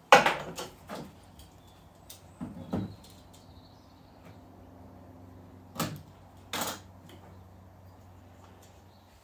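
Sharp plastic-and-metal clacks and knocks of a caulking gun being handled while a silicone cartridge is changed: a loud clack at the start with a couple after it, a few more knocks about two and a half seconds in, and two sharp clacks about six seconds in.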